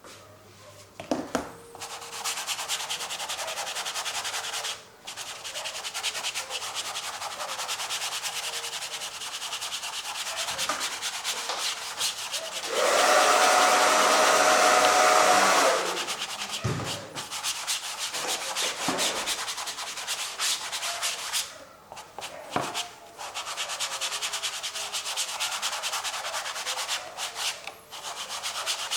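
A painting tool scraping and rubbing acrylic paint across a canvas in long strokes, with short breaks between them. A louder, harsher stretch of about three seconds comes near the middle.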